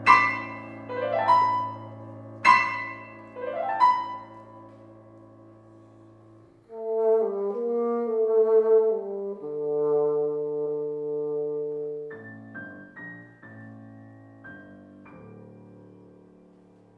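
Bassoon and piano playing a chamber sonata. Quick rising piano runs sound over a held low note, then the bassoon takes a sustained melodic phrase about seven seconds in. The piano follows with separate chords that die away.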